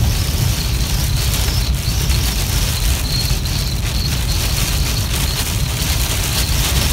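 Steady low rumble of a car at highway speed heard from inside the cabin, with the hiss of rain and tyres on wet pavement over it.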